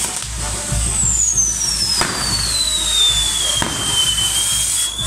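Fireworks on a burning torito, the bull-shaped firework frame, hissing as they spray sparks, with a whistle that falls steadily in pitch from about a second in until near the end. Two sharp cracks go off partway through.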